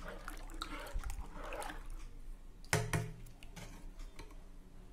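Metal spoon stirring thin milk batter in a steel pot, the liquid swishing and sloshing softly, with one sharp knock a little before three seconds in.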